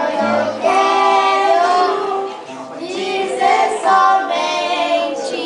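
A group of children singing a song together, several voices with notes held and gliding.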